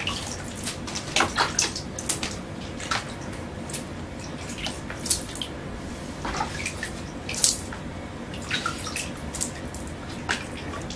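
Water flung by hand from a bucket onto a bare plaster wall, wetting it before putty goes on: irregular splashes and drips. A steady low hum runs underneath.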